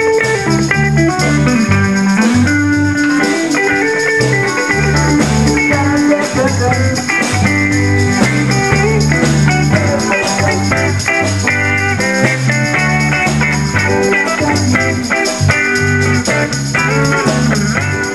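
Live band playing a funky blues groove: two electric guitars, a blonde Telecaster-style solid-body and a red hollow-body, over a pulsing bass line and drums.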